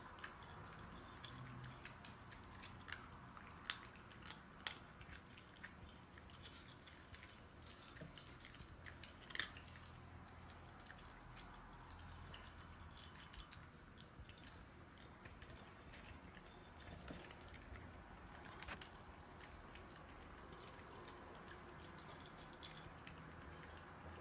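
Cats crunching dry kibble from their bowls: faint chewing with scattered sharp clicks of kibble and teeth against the bowls, the loudest about nine seconds in.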